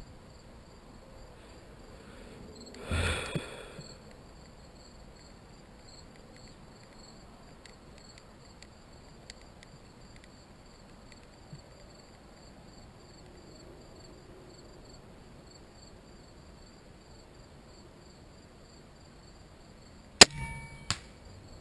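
Compound crossbow firing near the end: one sharp, loud crack as the string and limbs release, with a short ringing after it and a fainter knock about a second later. Crickets chirr steadily in the background, and there is a brief rush of noise about three seconds in.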